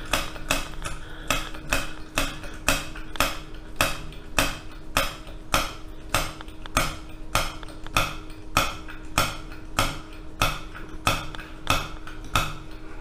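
Hand air pump of a vintage brass gasoline blowtorch being worked steadily to pressurise its fuel tank, each plunger stroke marked by a sharp click, about two a second. A faint steady hum lies underneath.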